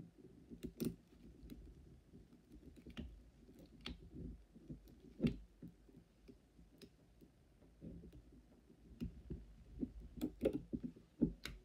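Irregular faint clicks and light taps as locked steel hemostats twist a brass separator wire tight between a typodont's teeth, with low handling noise from gloved hands on the model.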